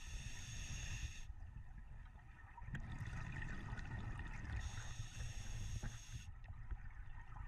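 A scuba diver breathing through a regulator underwater: two breaths, each a hiss lasting a second or two, about four and a half seconds apart, over a low steady rumble of water.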